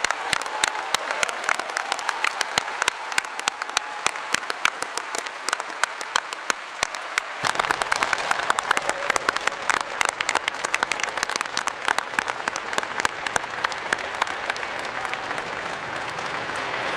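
Audience applause: many people clapping at once, a dense steady patter with single claps standing out. About seven and a half seconds in, the sound fills out with more low rumble underneath.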